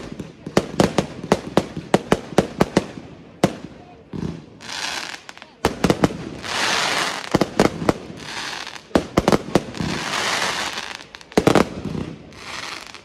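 Aerial fireworks going off in quick succession. A rapid string of sharp bangs over the first few seconds, then several longer hissing bursts of about a second each, with more sharp bangs in between.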